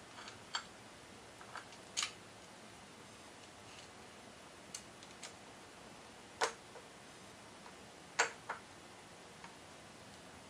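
Scattered light metallic clicks and clinks of a timing chain and steel cam sprocket being handled and seated on the camshaft of a Nissan KA24E engine, with two sharper clicks past the middle.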